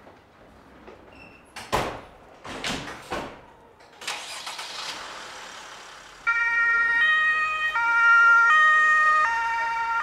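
Ambulance doors thudding shut a few times, then, about six seconds in, the ambulance's two-tone German siren (Martinshorn) starts, alternating between a high and a low tone about every two-thirds of a second.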